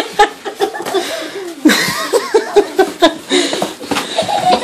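A child laughing in runs of rapid giggles, about four pulses a second, with a fresh run breaking out about two seconds in.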